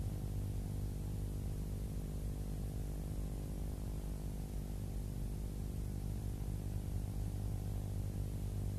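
Steady electrical hum with many evenly spaced overtones over a faint hiss, unchanging throughout; no hammer blows or other events stand out.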